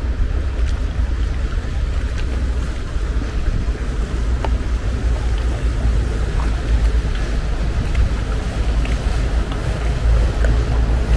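Steady low rumble of a boat engine, with a few faint clicks scattered through it.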